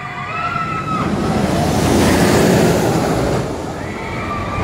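Steady rushing wind buffeting the microphone. A faint, high, wavering cry comes through in the first second, and another held cry starts near the end.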